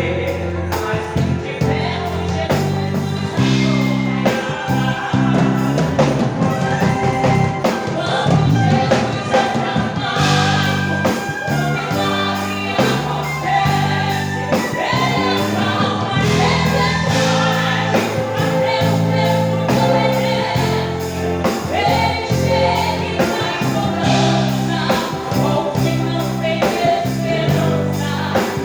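A gospel hymn sung by a group of voices over instrumental accompaniment with a steady, stepping bass line.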